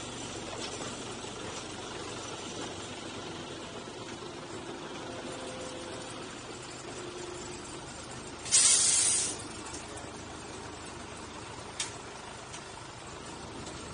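Narrow-gauge tourist train running along the line: a steady rumble and hum from the train. A loud, short hiss lasting under a second comes about two-thirds of the way through, and a single sharp click follows a few seconds later.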